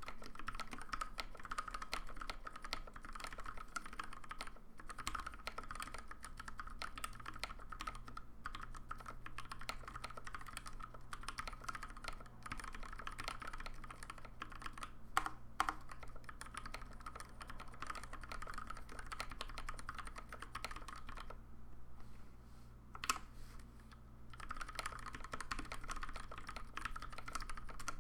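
Continuous typing on a custom Alice-layout mechanical keyboard with lubed Gateron Pink linear switches on 72 g springs, PBT keycaps and ABS spacebars. There are two louder clacks a little past halfway, and a short lull near the end broken by one keystroke before the typing resumes.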